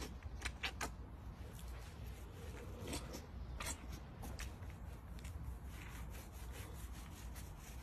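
Hands rubbing and scrubbing shampoo into a wet Rottweiler's coat, with scattered short clicks and rustles over a low steady rumble.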